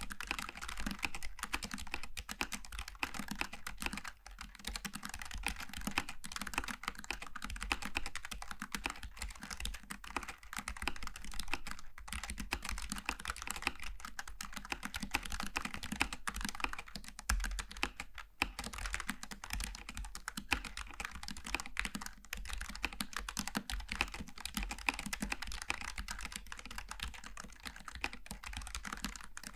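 Continuous typing on a Logitech G915 TKL low-profile mechanical keyboard with tactile switches: a dense, steady stream of key clicks with a few brief pauses.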